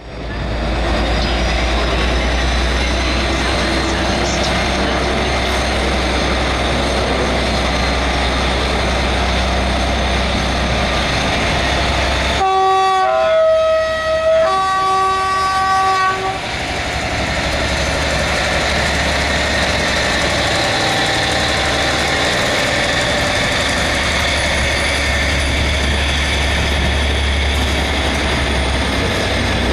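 Class 57 diesel locomotive (General Motors EMD 645 V12 two-stroke engine) running steadily with a deep hum as the train departs. About twelve seconds in, its two-tone horn sounds three notes, low, high, low, for about four seconds.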